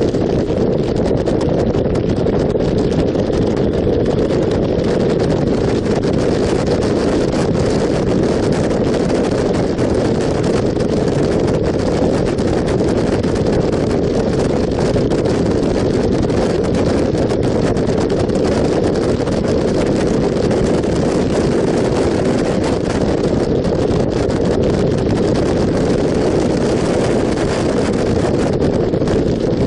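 Wind rushing over the microphone of a motorcycle-mounted camera at a steady cruising speed, with the motorcycle's engine and road noise blended in underneath. It is a loud, even rush that does not change.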